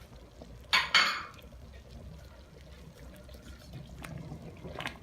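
Thick harira soup being poured, two short splashing pours about a second in, then quieter liquid sounds and a light click near the end.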